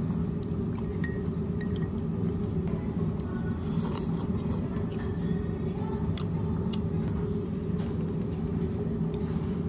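Steady low rumble with a few faint, light clinks scattered through it.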